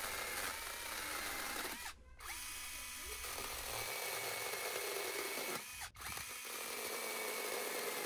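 Hyoja 21 V cordless electric chainsaw with an 8-inch bar running and cutting through green sapling wood: a steady motor whine that drops out briefly twice, about two and six seconds in, and picks back up.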